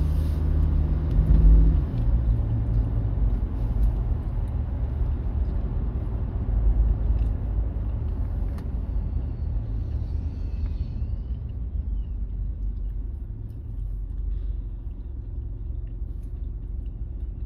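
Steady low rumble of a car being driven, road and engine noise, easing off gradually as the car slows down near the end.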